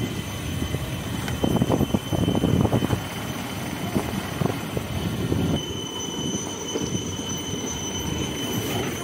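Motorcycle riding along a rough dirt road: engine running under wind noise, rattling over the bumps, with a thin steady high-pitched tone throughout.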